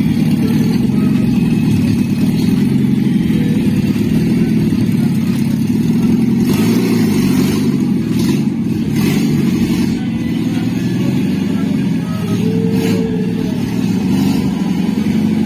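Owner-type jeep's engine running at low revs as the jeep is driven slowly down a ramp, with the revs rising and falling a little now and then.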